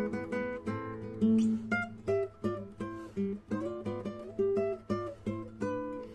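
Acoustic guitar playing a melody of quickly plucked notes over steady bass notes.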